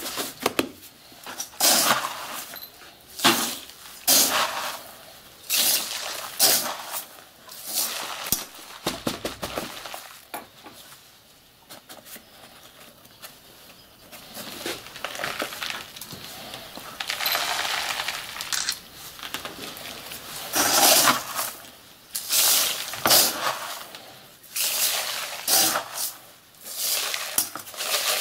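Hard firework stars clicking and clinking against each other and the cardboard as they are packed by hand into a cylindrical paper shell casing, with rustling paper and a rattle of black burst-charge granules. Many short clicks, irregular and uneven in loudness.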